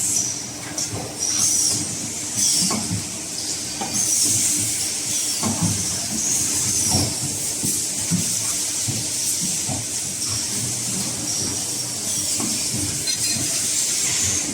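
CNC pipe bending machine running: a steady hum under a continuous hiss, with short falling squeals and irregular clicks and knocks.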